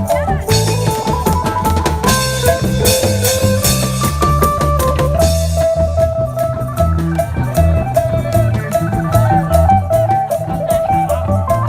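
Isan folk band playing live: a phin, the plucked Isan lute, carries the melody over stepping bass notes and a drum kit keeping a steady beat.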